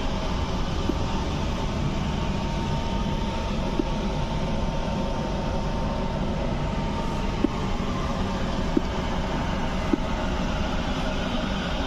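Steady rumble and hum inside an air-conditioned Indian Railways passenger coach, with a faint steady whine that stops about halfway and a few light clicks.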